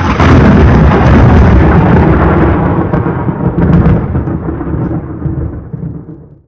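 A sudden loud rumble that starts at full strength, rolls on heavily and slowly fades over about six seconds before cutting off.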